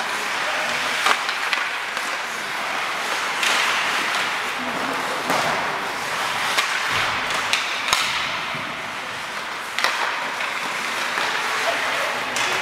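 Ice hockey in play: skate blades scraping across the ice, with sharp knocks of sticks on the puck several times, the loudest just before ten seconds in.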